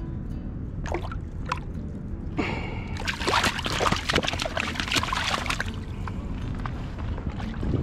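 Water splashing and sloshing for about two and a half seconds, starting about three seconds in, over a steady low rumble, with a few short clicks before it.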